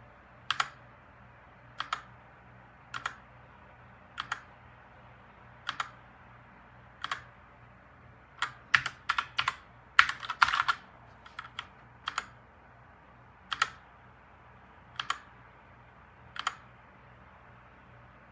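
HK Gaming GK61 60% mechanical keyboard with red switches, single keys pressed one at a time about every second and a half, each a sharp click. About halfway through there is a quicker run of several keystrokes.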